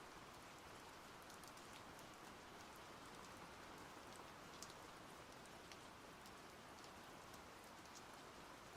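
Faint, steady splashing of running water, with scattered small drips and ticks over it.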